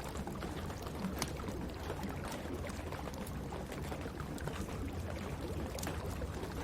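Wood fire crackling in a fireplace, with sharp pops scattered irregularly through it, over a steady rush of rain.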